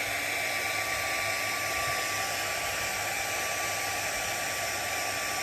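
Steady rushing air noise with a faint high whine, like an electric blower running.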